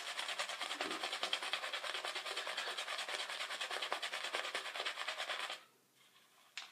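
Synthetic shaving brush swirling a lather of Mitchell's Wool Fat soap in a wet palm, a fast, even wet scratching of brush strokes while the lather is built up. It stops about five and a half seconds in, and a faint click follows near the end.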